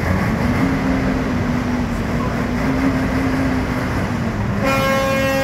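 Mercedes-Benz truck's diesel engine running under load as the truck moves off, a steady drone whose pitch rises at first and then holds. Near the end a horn blasts.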